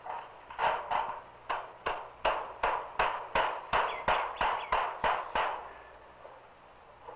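Hammering: a hammer striking nails into wood in steady blows, about three a second, that stop about five and a half seconds in.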